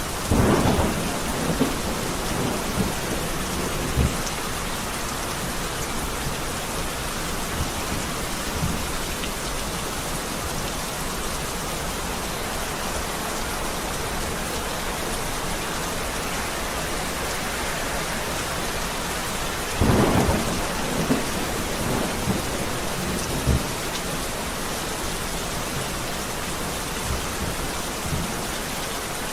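Heavy rain falling steadily, with two cracks of thunder, one right at the start and another about 20 seconds in, each followed by a few short low rumbles.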